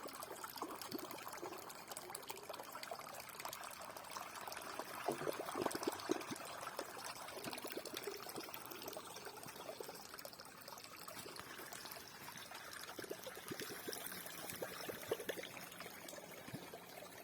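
Water trickling and splashing in an irregular, continuous flow, a little louder around five to six seconds in.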